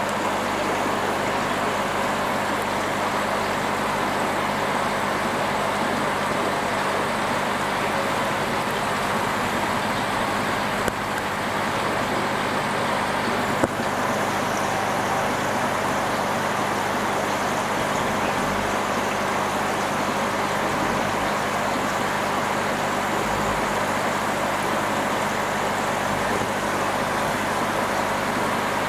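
Steady rushing noise with a constant low hum, broken only by two faint clicks about 11 and 14 seconds in.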